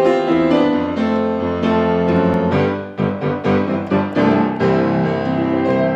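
Grand piano being played: held chords, then from about two and a half seconds in a quicker passage of short, separate chords struck a few times a second.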